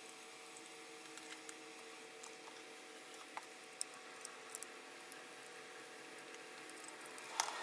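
Faint scattered clicks from a small precision screwdriver and the metal bracket of a laptop optical drive being handled while the bracket's two tiny mounting screws are worked, with a louder click near the end. A faint steady hum runs underneath.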